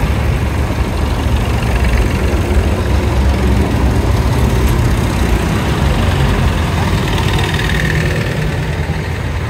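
Vintage farm tractor engines running at low speed as tractors drive past one after another, a blue Ford tractor's engine loudest as it passes close by the middle, easing off near the end.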